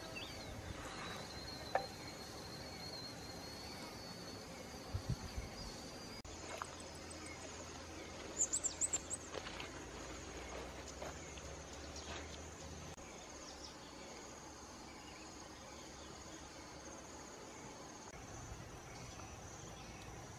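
Insects buzzing steadily in the background as a continuous high drone. A few sharp knocks and a quick run of high chirps come about eight seconds in.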